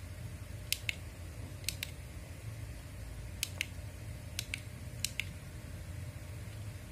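Button on a small key-fob remote clicking, each press a quick double click, five times at irregular intervals, switching the toy arc reactor's lights. A faint steady hum of room noise underneath.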